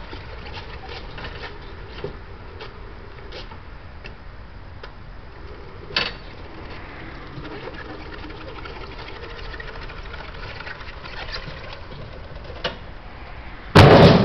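Electric muck truck's motor whirring steadily as it drives a firewood load along the ramps, with a few short knocks. Near the end comes a loud bang with metallic ringing that dies away.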